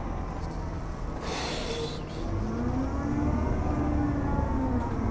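City bus engine and drivetrain heard from inside the bus, with a steady low rumble. A short hiss comes about a second in, and from about two seconds in the pitch rises slowly as the bus speeds up.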